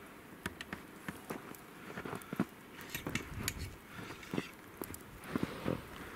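Footsteps crunching through snow, an irregular run of crunches with a few soft thuds.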